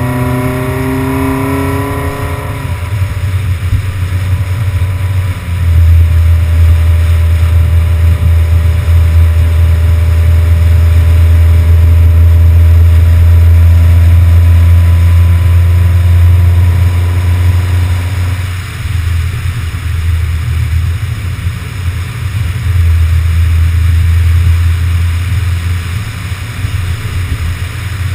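Car driving at speed, recorded from a camera mounted on the outside of the body: heavy wind rumble on the microphone over engine and road noise. The engine pitch rises in the first couple of seconds, and the rumble is loudest through the middle.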